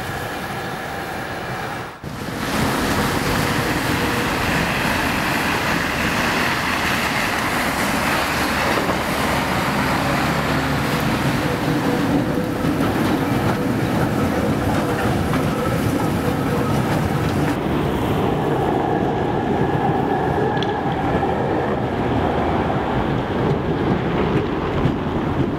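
Tram running on street track: a steady rolling rumble of wheels and motors with a few faint whining tones, which drops out briefly about two seconds in and then carries on.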